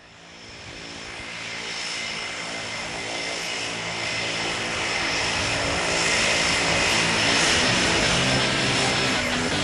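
Seaplane's propeller engine running, growing steadily louder over the first six seconds, then holding steady.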